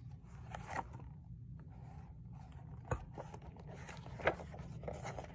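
Paper rustling and light scrapes as the pages of a hardcover picture book are handled and turned, with a couple of soft taps, over a faint low steady hum.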